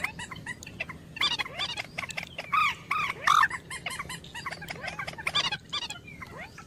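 A waterbird lure call played from a bird trapper's caller speaker: quick clusters of rising-and-falling chirping notes, loudest in the middle.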